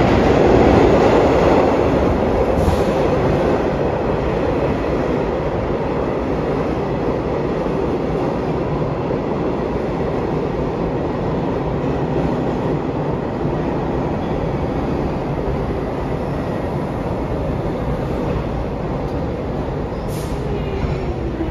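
Vintage New York City subway train of R33 and R36 cars running along the track, a steady, loud wheel-and-rail noise that is loudest in the first couple of seconds and then eases a little and holds.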